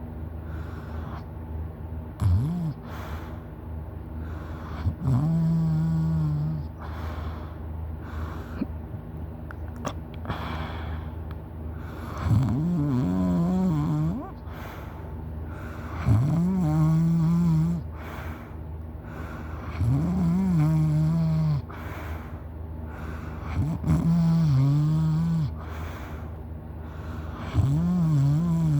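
A person snoring loudly in sleep: seven snores, each lasting one to two seconds and coming roughly every four seconds, with one longer gap about a third of the way in.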